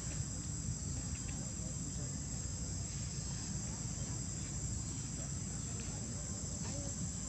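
Steady high-pitched drone of insects calling, with a low rumble underneath.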